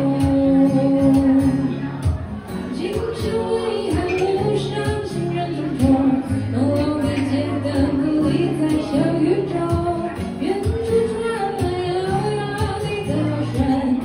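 A woman singing, accompanying herself on a strummed acoustic guitar.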